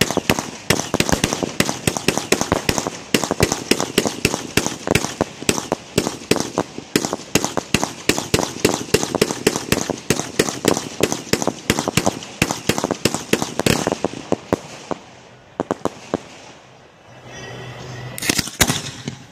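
Aerial fireworks going off in a rapid barrage of sharp bangs, several a second. The barrage thins out about fourteen seconds in and goes quieter, then one last loud burst comes near the end.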